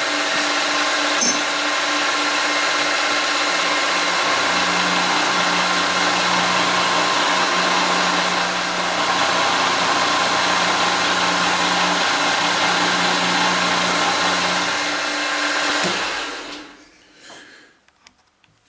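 Optimum MB4 mill-drill running an end mill through an aluminium casting under power feed: a loud, steady machining whine with the noise of the cut. About sixteen seconds in, the spindle is shut off and the sound dies away within a second or two.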